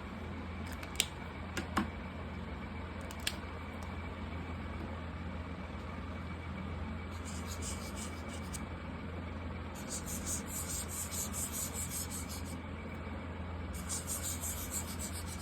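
Markers drawing on paper: scratchy rubbing strokes that come in quick runs in the second half. A few sharp clicks come in the first few seconds.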